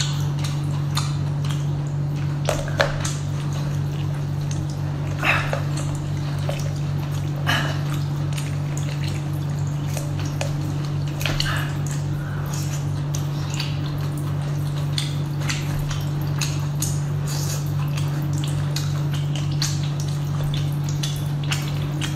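Close-miked eating sounds: wet chewing and smacking with scattered short crackles of cooked lobster shell and meat being pulled apart by hand, over a steady low hum.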